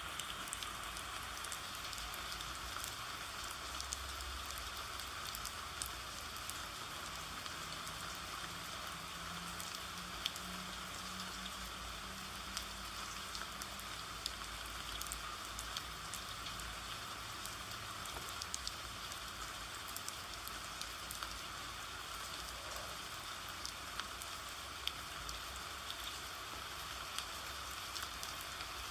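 Steady rain, an even hiss with scattered sharp ticks of single drops.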